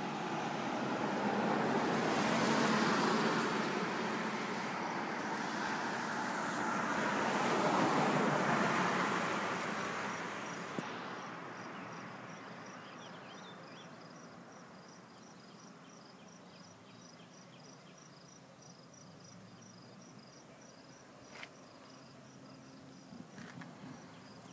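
Road traffic passing on the street: the tyre and engine noise of two vehicles swells and fades in turn over the first dozen seconds. After that a quieter outdoor background remains, with a faint, evenly repeated high chirp.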